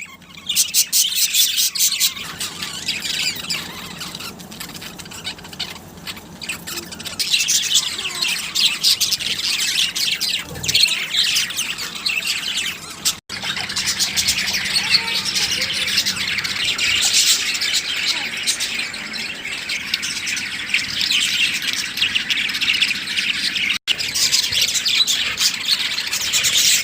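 Many birds chirping and squawking together in a dense, continuous chatter of rapid high calls, broken by two brief cuts to silence.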